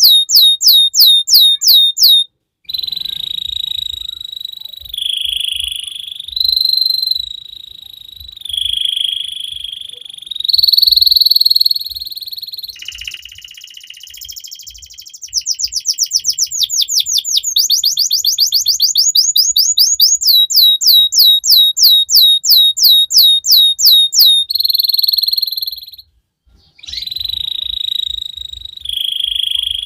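Domestic canary singing: fast runs of repeated sweeping notes and rolling trills, with phrases changing every couple of seconds. The song breaks off briefly twice, about two and a half seconds in and near the end.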